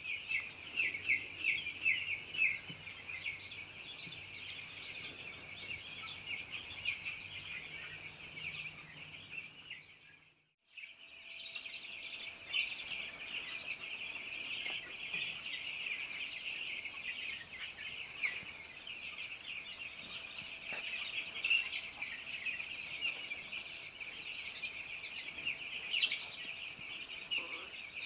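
A large flock of young chicks peeping continuously, many short high chirps overlapping. The sound drops out briefly about ten seconds in and then resumes. A faint low hum runs under the first part.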